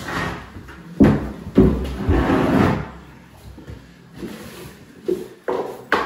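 A heavy shower tray knocks twice against the floor and wall as it is stood up on edge, with a scrape as it slides into place, then a stiff broom sweeps the dusty concrete floor in short strokes.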